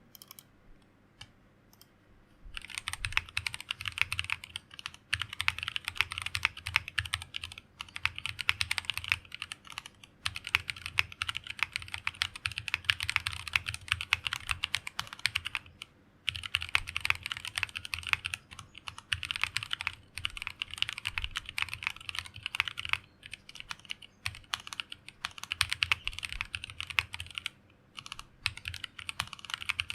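Fast, continuous typing on a mechanical keyboard with stock (unlubed) Tropical linear switches (polycarbonate top, nylon bottom) in a plateless BM60 Poker build. A few single key presses come first, then quick runs of key strokes broken by short pauses.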